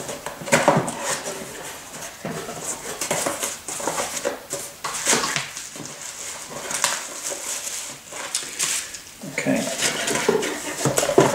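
Cardboard box being opened and its contents handled: irregular scraping, rustling and light knocks of cardboard, then the crinkle of bubble wrap as the wrapped device is lifted out near the end.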